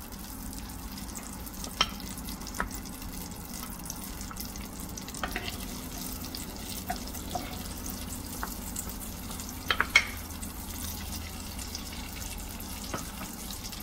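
Butter melting and sizzling gently in a hot frying pan over low heat while a wooden spatula stirs it, with a few sharp taps and scrapes of the spatula on the pan, the loudest about ten seconds in. A steady low hum runs underneath.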